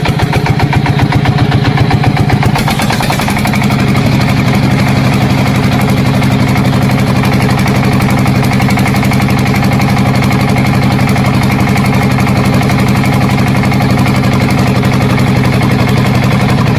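An engine running with a fast, even pulsing beat, settling into a steady idle about three seconds in.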